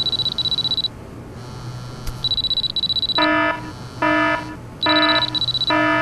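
Electronic buzzer and beep sound effects from a played track. A high buzzing tone sounds in three short spells, and from about three seconds in a run of pitched beeps repeats about every 0.8 seconds.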